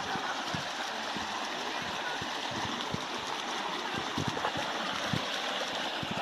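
Shallow river water rushing steadily over stones and small rapids.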